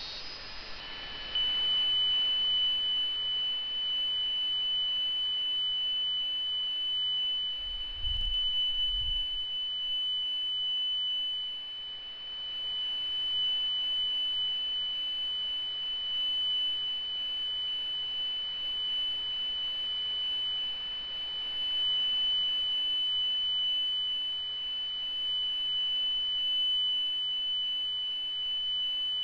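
Steady high-pitched tone over hiss from a software-defined radio's AM-demodulated audio output, coming on about a second in and holding one pitch. Two brief low thumps sound around eight and nine seconds in.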